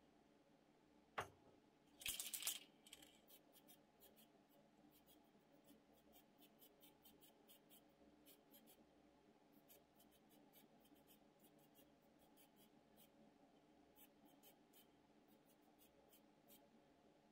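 A sharp click, then a short hiss of an aerosol spray-paint can fired in one brief burst of about half a second, followed by faint, scattered light ticks.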